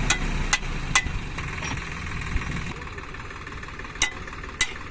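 Heavy vehicle's diesel engine running, with five short sharp knocks, the loudest about a second in. The engine gets quieter from about three seconds in.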